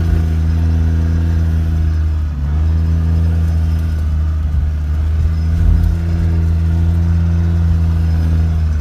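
4x4's engine heard from inside the cab, running at a steady note under load while the vehicle drives through deep snow. The engine note drops briefly about two seconds in, then picks back up and holds steady.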